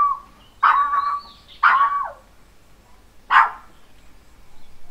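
A dog barking three times, a second or more apart, with a faint high bird whistle behind the first bark.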